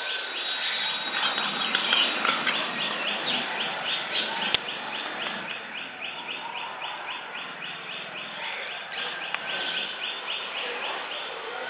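A bird chirping in a fast, even series of short notes, about five a second, over a busy background of other birds and ambient noise, with a single sharp click about four and a half seconds in.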